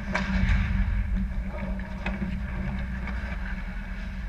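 Ice hockey play around the net: skates scraping on the ice and a few sharp clacks of sticks and puck over a steady low hum, busiest in the first second.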